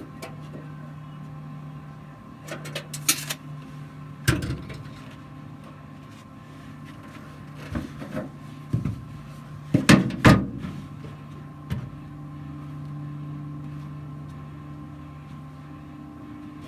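Scattered sharp knocks and clanks, the loudest a pair close together about ten seconds in, over a steady low hum.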